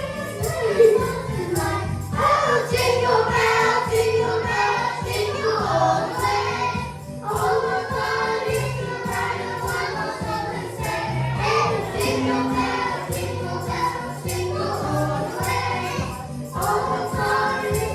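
Choir singing over band music with a steady beat.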